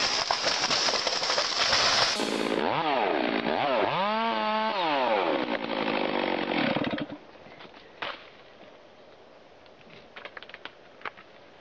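Chainsaws cutting into large tree trunks. The first runs flat out in the cut. About two and a half seconds in a second saw takes over, revving up and down with its pitch rising and falling. It stops about seven seconds in, leaving only faint scattered clicks.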